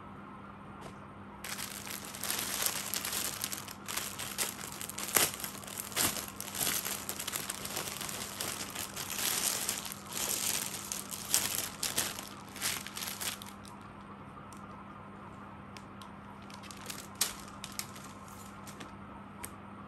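Clear plastic packaging crinkling and fabric rustling as unstitched suits are pulled out of their packets and unfolded by hand. The crinkling is dense from about a second and a half in until about two-thirds of the way through, then comes back as a few brief crinkles near the end.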